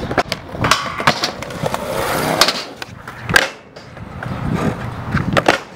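Skateboard wheels rolling on concrete, broken by sharp board clacks, with one loud slam of the board about three and a half seconds in.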